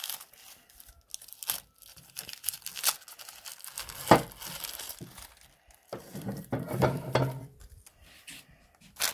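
Crumpled metallised-plastic Lay's crisp packets crinkling and tearing as they are pulled out of the front plate of a meat grinder, an irregular run of crackles with a sharper snap about four seconds in.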